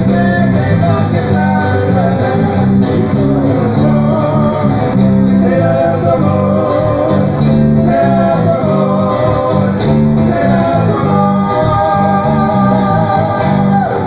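Live band music played loud through the stage sound system: amplified guitars over a moving bass line, with a sung vocal melody.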